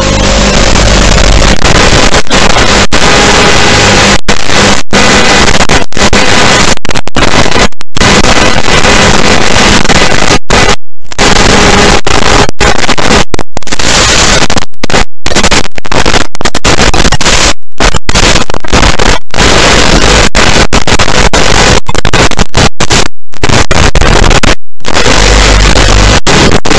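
Loud, even hiss of radio static from an analog FPV video link, cut by many brief dropouts to silence.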